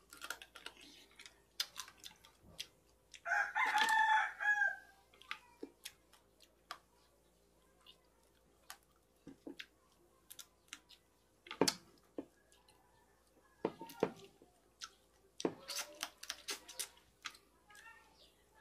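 A rooster crows once, about three seconds in, for under two seconds. Around it are scattered short clicks and smacks of people eating by hand.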